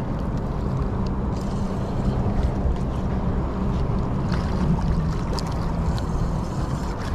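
Steady low rumble of wind on the microphone and water, with a few faint clicks as a spinning reel is cranked in against a hooked smallmouth bass.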